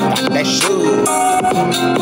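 Hip-hop style music playing loudly.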